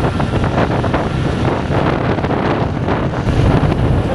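Wind rushing over the microphone on a moving motorcycle, with the bike's engine and road noise underneath: a loud, steady rumble.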